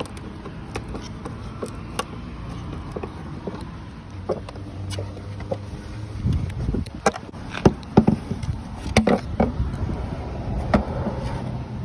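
Clicks and knocks of hand work on a 2002 Dodge Durango's plastic tail light housing as it is unscrewed and worked loose from the body. The sounds are sparse at first and grow louder and busier about halfway through.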